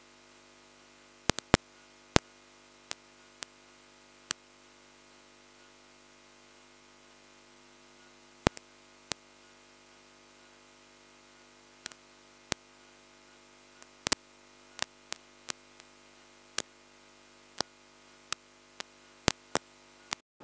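Sharp, very short clicks at irregular intervals, roughly one or two a second, over a faint steady room hum.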